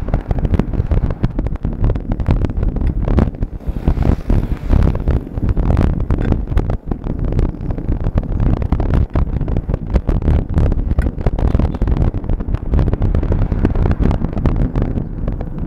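Wind buffeting the microphone of a camera riding on a moving bicycle: a loud, gusty low rumble that rises and falls constantly.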